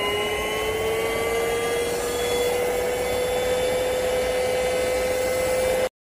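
Airbot Supersonics Aura cordless stick vacuum running: a steady rush of suction with a motor whine that slowly rises in pitch, cutting off abruptly near the end.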